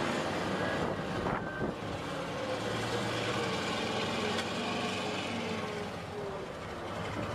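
Large wheel loader's diesel engine running steadily as the machine drives and turns.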